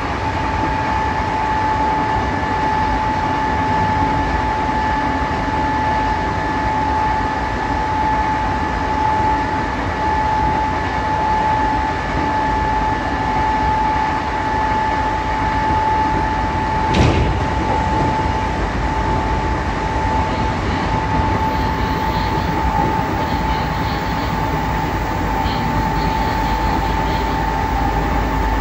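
Odakyu 8000 series electric train standing at the platform, its equipment giving a steady high hum over a steady rush. A single sharp knock comes about two-thirds of the way through.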